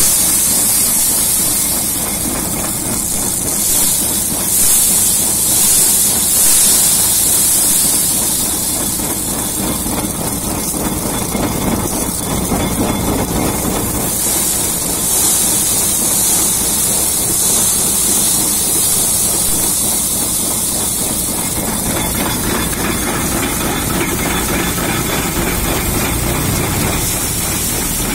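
Stationary threshing machine running steadily with a loud rushing hiss as wheat sheaves are fed through it.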